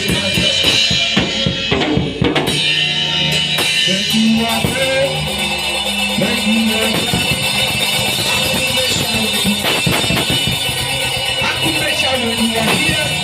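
Live church band playing worship music: a drum kit with bass drum and snare hits over sustained chords.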